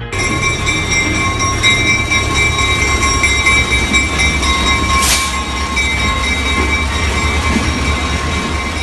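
Heber Valley Railroad diesel locomotive and passenger coach passing close by: a steady low engine rumble with several steady high ringing tones held over it. A short burst of hiss comes about five seconds in.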